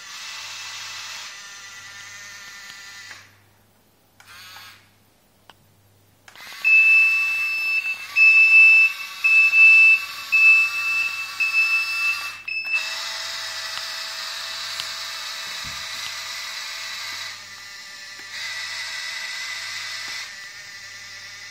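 Electric drive motors of a Kyosho Komatsu D575A RC model bulldozer whining as it moves, falling nearly silent for about three seconds. It then reverses with its electronic reverse beeper sounding about once a second for some six seconds, and the motor whine carries on afterwards.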